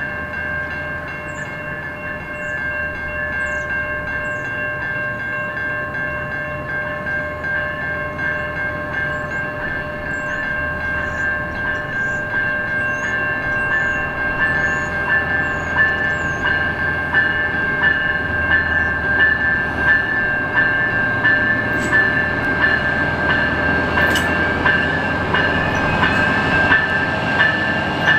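Level-crossing warning bells ringing steadily while a VIA Rail Siemens Charger SC-42 diesel locomotive approaches. The train's rumble grows louder through the second half, with sharp clicks from the wheels near the end. Birds chirp faintly in the first few seconds.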